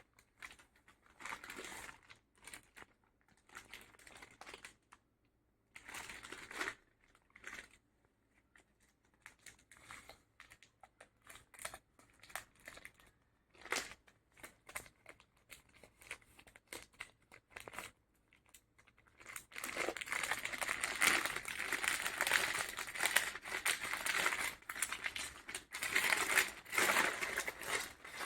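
Parcel packaging being handled, crinkled and torn open during an unboxing: separate rustles at first, then continuous, louder crinkling for the last third.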